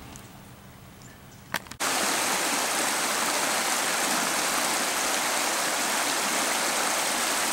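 A faint quiet stretch with a single click, then a loud, steady rushing hiss that starts abruptly about two seconds in and holds evenly.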